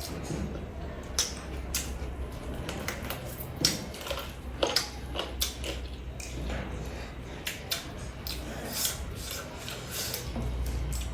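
Close-miked eating: wet chewing and mouth smacks, heard as an irregular run of short clicks over a low steady hum.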